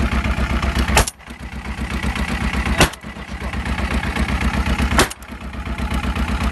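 Three shotgun shots about two seconds apart, over the steady pulsing run of a boat motor. The overall sound drops briefly after each shot.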